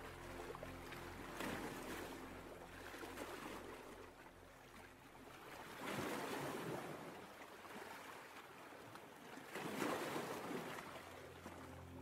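Ocean waves breaking and washing in, the surf noise swelling and ebbing three times about four seconds apart, loudest near the middle and near the end. Soft music fades out at the start.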